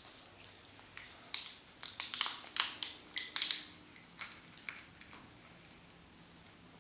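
Hard plastic toy pieces clicking and knocking together as they are handled, in a quick irregular run of sharp clicks through the middle few seconds.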